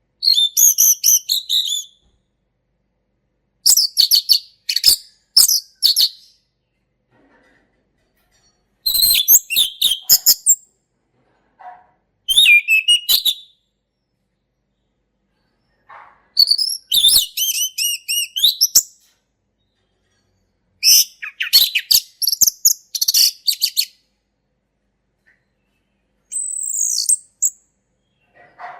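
Male orange-headed thrush singing its full, clear 'ngeplong' song: about seven phrases of rich, rapidly varied high whistles and warbles, each one to three seconds long, with short silent pauses between them.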